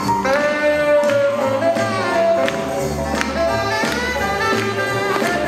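Swing jazz music: horns play held notes over a walking bass line, punctuated by sharp drum hits.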